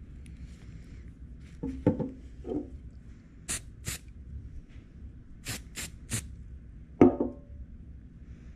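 CA glue activator being misted from a pump spray bottle onto freshly laid CA glue to cure it instantly: two short sprays, then three more. Dull knocks of bottles being handled come about two seconds in and, loudest, about seven seconds in.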